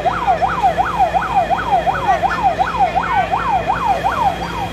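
Fire truck siren sounding in a fast yelp: its pitch sweeps up and down about three times a second, and it cuts off just before the end.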